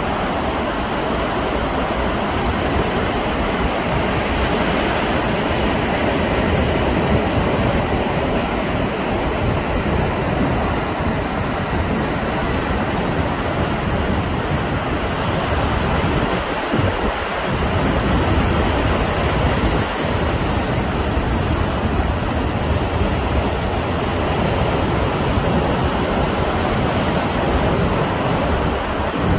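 Steady rushing of sea surf and wind, with a low rumble of wind buffeting the microphone.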